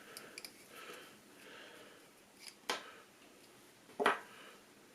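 Scissors snipping heat shrink tubing: faint handling rustle, then two sharp snips about a second and a half apart.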